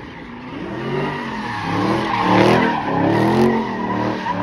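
A car doing donuts in tyre smoke: the engine revs up and down several times over screeching tyres, loudest around the middle.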